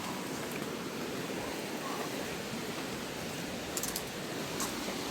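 Heavy downpour pouring steadily, with a few short sharp ticks near the end.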